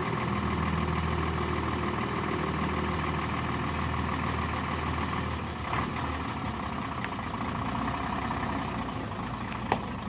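Hino truck's diesel engine idling steadily, with a sharp click near the end.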